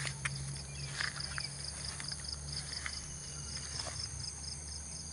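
Insects chirping in a steady, even high pulse of about five chirps a second, over a low steady hum, with scattered brief rustles of feet and legs pushing through grass and weeds.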